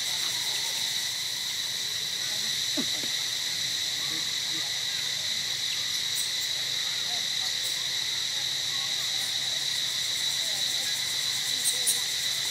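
Steady insect chorus: one continuous high-pitched drone at an even level, with a couple of faint clicks near the end.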